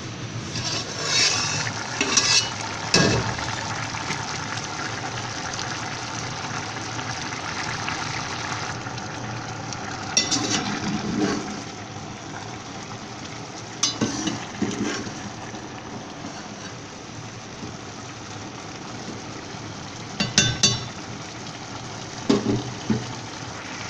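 Rice and chickpeas boiling hard in an aluminium pot, a steady bubbling hiss as the water cooks down into the rice. A few short metal clinks and knocks of the lid or spoon against the pot sound over it.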